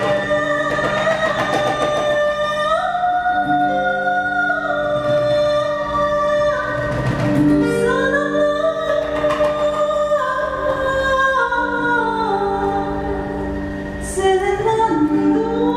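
A woman singing long held notes that step up and down, accompanied by traditional plucked and bowed string instruments over a steady low drone.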